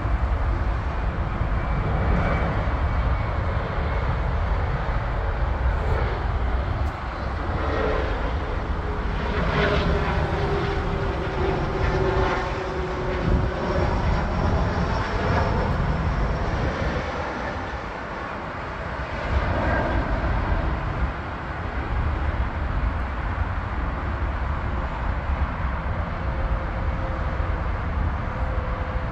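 Jet airliner engines roaring as planes take off and land, a steady rumble with a whining engine tone that slowly drops in pitch about a third of the way in.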